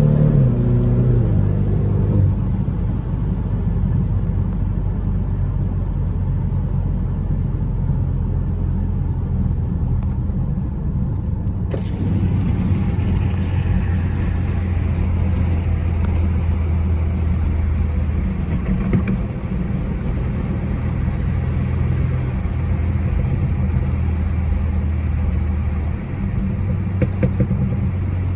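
BMW F30 3 Series engine and exhaust under way, with the revs dropping in the first two seconds and then settling into a steady low drone. A few short sharp cracks from the exhaust come near the end.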